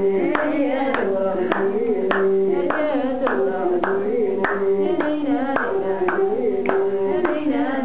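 Voices singing a short repeating melody, accompanied by steady rhythmic hand-clapping.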